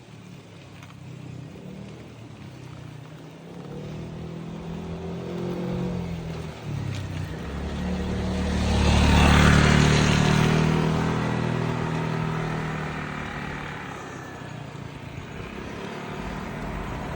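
A motor vehicle approaching and passing, its engine and tyre noise swelling to a peak about nine seconds in and then fading away. Another vehicle approaches near the end.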